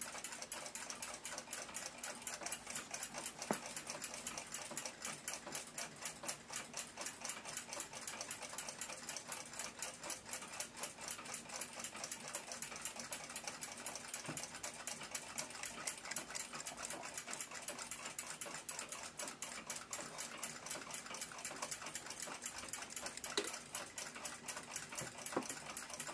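Chelsea ship's bell clock movement running, a fast, even ticking, with a few louder clicks.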